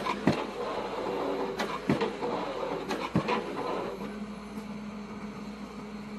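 Excavator-mounted pile-driving hammer striking a pile, three heavy blows about a second and a half apart over the excavator's running engine. The blows stop about four seconds in, leaving the engine running steadily.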